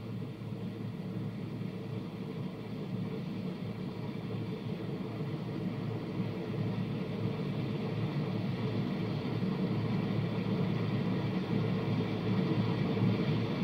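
Steady low rumble and hiss with a faint even hum, growing slowly louder: the background noise of the recording during a silent pause.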